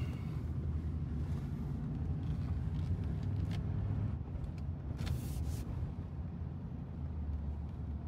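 Inside the cab of a Ford pickup truck driving at low speed: steady engine and road rumble, with a short hiss about five seconds in.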